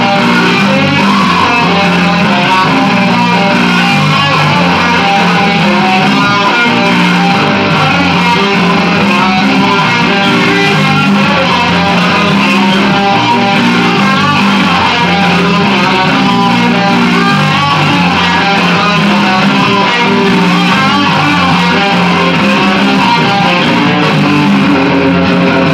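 Electric guitar playing a rock song, loud and continuous.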